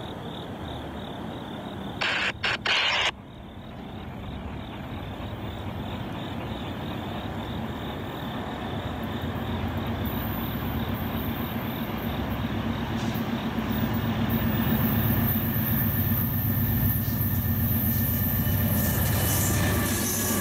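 A Norfolk Southern freight led by a GE C44-9W and an EMD SD70M diesel-electric locomotive approaches at about 49 mph. Its engine rumble and wheel noise grow steadily louder, becoming a rushing roar as the locomotives reach the track beside the listener near the end. About two seconds in, a sudden loud burst of noise with two brief breaks lasts about a second.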